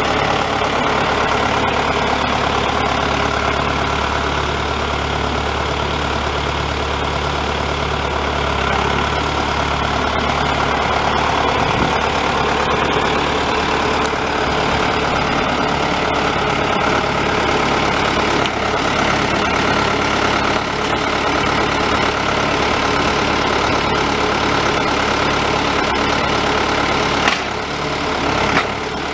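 John Deere 6420 tractor's four-cylinder diesel engine idling steadily, the note shifting slightly partway through as the loader is worked. A short knock comes near the end.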